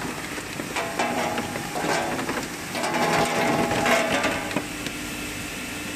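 Oyster cleaning machine running, its stainless wire-mesh conveyor carrying oysters, with the shells clattering and knocking against the mesh and each other over a steady machine hum. The clatter eases off near the end, leaving the hum.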